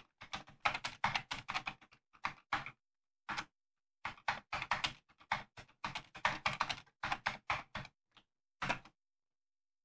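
Commodore 64 keyboard being typed on: quick runs of sharp key clicks as a line of text is entered, with a short pause about three and a half seconds in. The keystrokes stop about a second before the end.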